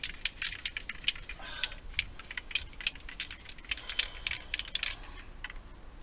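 Aerosol spray paint can being shaken hard, its mixing ball rattling inside in quick clicks, several a second, to mix the paint. The rattling dies away near the end.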